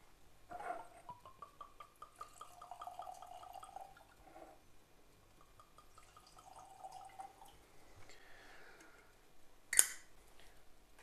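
Whisky poured from a bottle into two small tulip-shaped tasting glasses, glugging in two runs of quick, even pulses that rise slightly in pitch as each glass fills. Near the end comes a single sharp clack.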